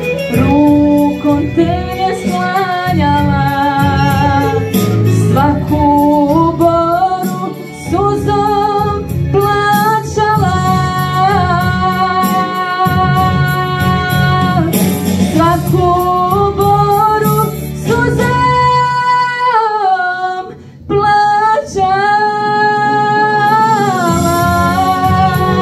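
A girl singing a song into a microphone over instrumental accompaniment, with long held notes that slide between pitches. The sound drops briefly about twenty seconds in.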